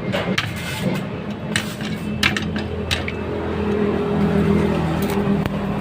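A steady low mechanical hum, like a motor running, with a few sharp metallic knocks, the sort of hammer taps and clanks made while fabricating a steel frame.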